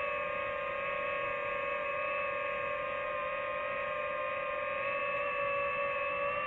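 DJI FPV drone's motors and propellers whining at a steady idle pitch, armed on the ground before takeoff.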